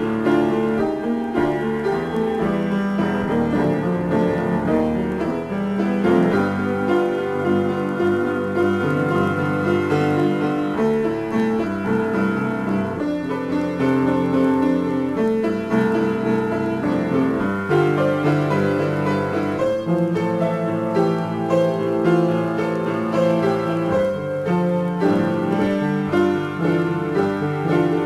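Solo piano improvisation, a continuous flow of chords and melody notes with no pauses.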